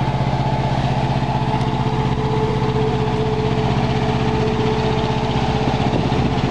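Caterpillar C15 inline-six diesel of a 2009 Kenworth T660 idling steadily, with a fast, even firing pulse.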